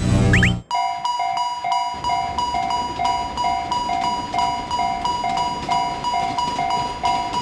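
Electronic Japanese railroad crossing bell ringing, its ding repeating evenly a little over twice a second, just after a short loud cartoon sound effect at the start.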